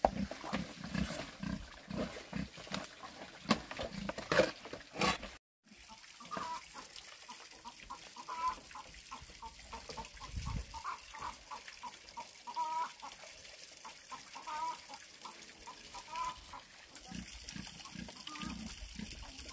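A run of sharp strikes, about two a second, fitting a hoe chopping into garden soil, stops at an edit about five seconds in. Chickens cluck in short repeated calls through the rest.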